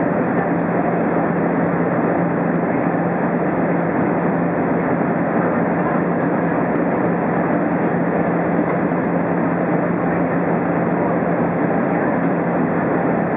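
Steady cabin noise inside an Airbus A320 in flight: the rush of engines and airflow, with a steady low hum under it.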